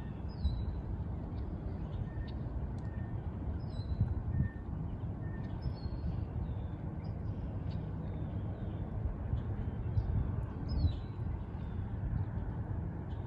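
Birds chirping, short high downward-slurred calls repeating every few seconds, with fainter short piping notes between them, over a steady low rumble.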